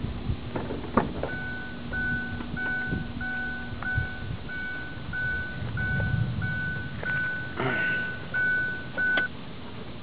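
Electronic beeper sounding a steady high beep over and over, just under two beeps a second, about a dozen times, stopping shortly before the end. A low steady hum runs under the first few seconds, and a few sharp knocks come through.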